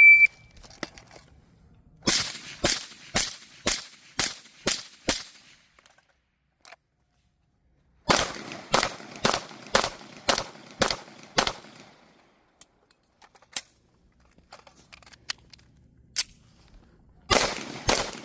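A shot-timer beep starts the run. About two seconds later comes a string of about seven rapid gunshots, roughly two a second. After a pause of about three seconds a second string of about seven follows, then a few faint clicks, and a quick burst of shots near the end.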